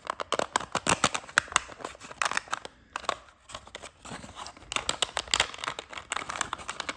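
Thin 3D-printed plastic strips crackling and clicking as they are flexed, pulled apart and their flaps folded down. The clicks come thick and irregular, ease off a little before the middle, and pick up again.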